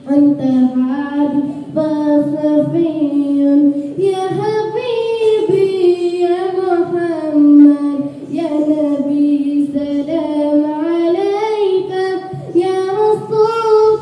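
A boy singing solo into a handheld microphone, holding long notes and sliding between pitches in a melodic line.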